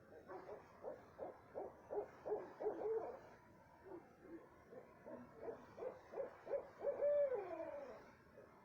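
Owls hooting at night: quick runs of short hoots, about three or four a second, then a louder, longer call near the end that slides down in pitch.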